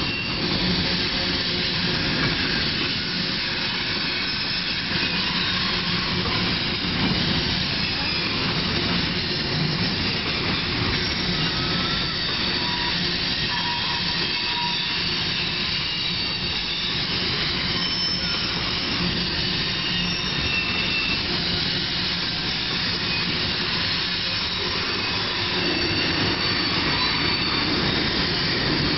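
Freight train tank cars and covered hoppers rolling past, a steady rumble of steel wheels on rail, with brief faint high-pitched wheel squeals now and then.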